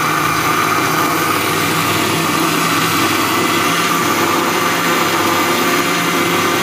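Electric mixer-grinder running steadily at full speed, grinding pieces of bread into fine breadcrumbs: a loud, even motor hum and whine with no change in pitch.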